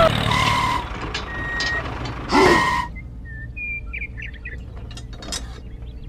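Vehicle reversing alarm beeping twice, about two seconds apart, over a low steady engine rumble; faint high chirps follow near the end.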